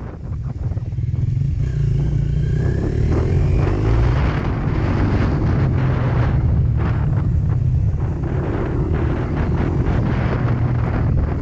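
Single-cylinder dirt bike engine running under way on a rough dirt track, its revs rising and falling, with wind buffeting the microphone.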